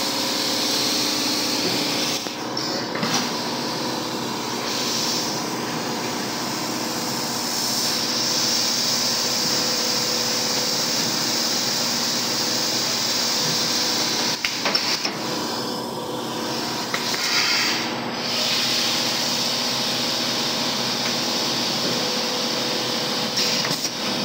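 Automatic blow moulding machine running: a steady mechanical hum with a hiss of compressed air that swells and dies away several times, and a few brief knocks.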